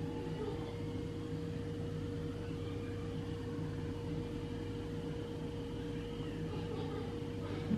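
Steady low hum of a running household appliance, with a faint constant tone over a low rumble. A brief louder sound comes right at the end.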